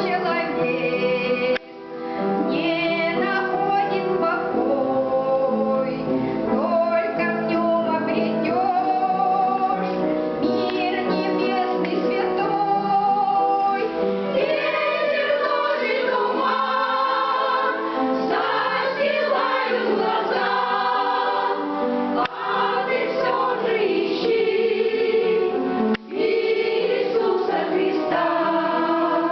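A choir singing a Christian song with musical accompaniment, with brief breaks between phrases about two seconds in and near the end.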